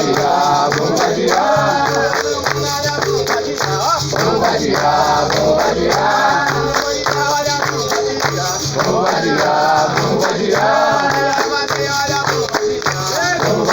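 Music: several voices singing together over a repeating bass line, with some shaken percussion.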